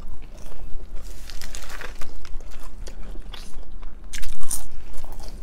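Close-miked chewing and crunching of crispy fried food, with a run of louder crunchy bites about four seconds in.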